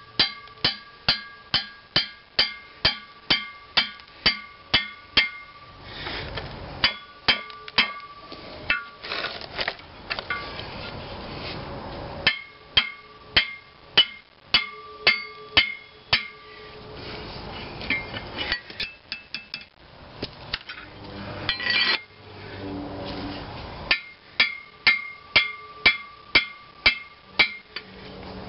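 Rapid hammer blows on a steel gib key puller, about four a second, each with a ringing metallic note, in runs broken by short pauses. The blows are driving a tight gib key out of the flywheel hub of a McCormick-Deering (International Harvester) flywheel engine.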